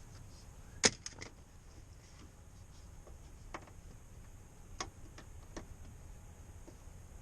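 A few scattered sharp clicks and light knocks of something being handled, the loudest about a second in, over faint steady background hiss.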